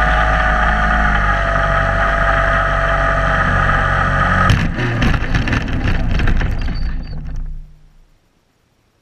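ParkZone J-3 Cub model plane's electric motor and propeller running steadily, with wind rushing past the onboard camera. About four and a half seconds in, the plane touches down on grass: a rattle of knocks and bumps as the wheels and airframe roll over the turf. The noise dies away to near silence near the end as the plane stops.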